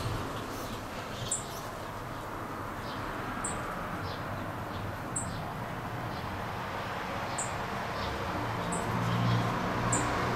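A small bird calling repeatedly outdoors: short, very high, falling chirps every second or two, over steady outdoor background noise. A low rumble swells near the end.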